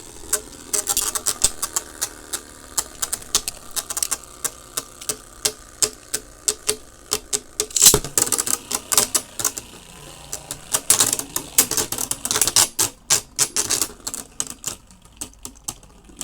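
Plastic Beyblade spinning tops clashing in a battle stadium: fast, irregular clicking and clacking as the tops strike each other and the stadium walls. There are busier bursts of hits about eight seconds in and again a few seconds later.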